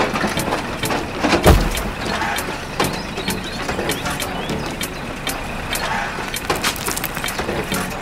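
Toy remote-control excavator working: mechanical running noise with frequent sharp clicks and one heavy low thump about a second and a half in.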